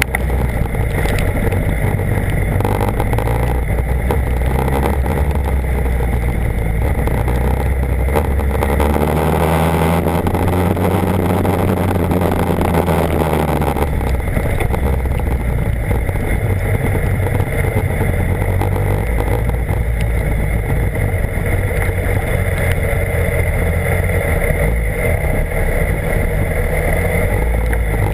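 BMW HP4's inline-four engine running under way, its pitch rising and falling with road speed, most plainly about a third of the way in, over a steady rush of noise.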